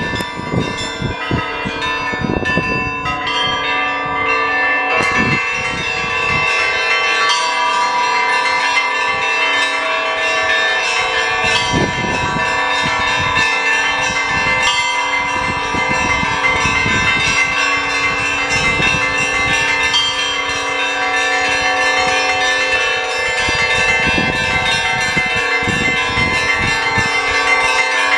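Russian Orthodox monastery bells ringing a full peal: many small bells struck in quick, continuous patterns over the lingering hum of larger bells, with occasional deeper strokes of a big bell.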